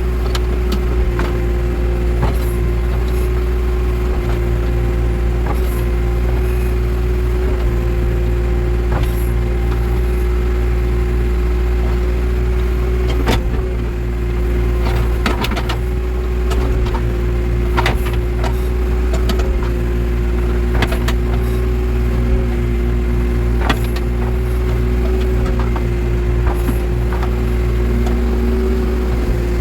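Backhoe loader's diesel engine running steadily under work, with scattered knocks and clanks from the machine as it digs.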